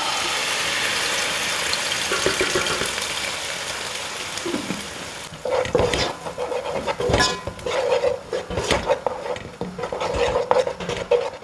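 Watery green chilli-and-herb paste frying in hot clarified butter in a pan: a loud sizzle that slowly dies down over about five seconds. After that a utensil stirs and scrapes against the pan, with irregular knocks, while the paste keeps frying.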